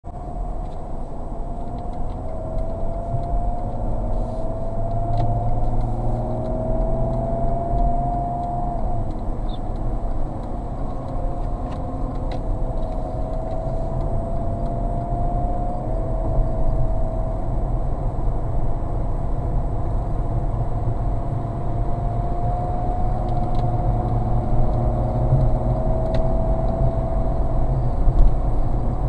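A car driving on a motorway, heard from inside the cabin: a steady low rumble of engine and road noise. Over it, a thin whine rises slowly in pitch and drops back a few times, about a third and about halfway through.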